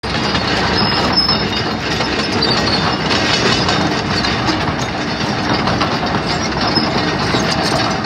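Hitachi ZX210LC-3 hydraulic excavator travelling on its steel tracks: the diesel engine running under a steady clanking and clicking of the track chains.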